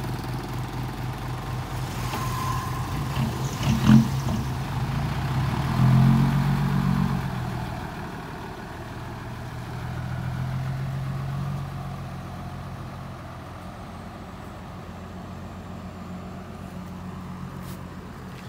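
Hino dump truck's diesel engine running, rising in revs as the truck pulls away about six seconds in, then dropping back and running quieter as it moves off. A short, sharp, loud sound stands out about four seconds in.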